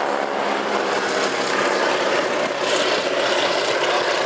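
Radial engines of two Boeing Stearman biplanes droning as the pair flies past. The even engine tone fades about a second in into a steadier, rougher noise.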